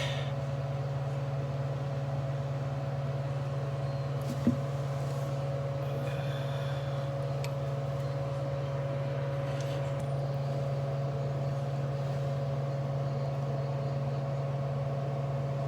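A steady low machine hum with a constant tone above it, and a single faint click about four and a half seconds in.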